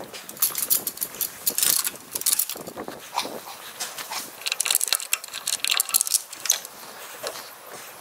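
Irregular clinks and rustles: footsteps in straw bedding and a metal gate chain jangling.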